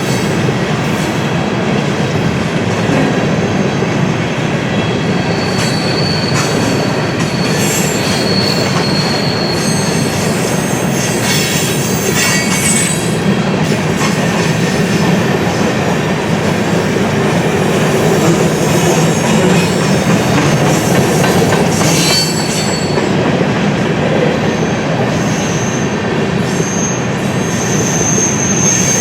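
BNSF freight train rolling past, a steady rumble of cars' wheels on the rail with high-pitched wheel squeal coming and going and a few sharp clicks.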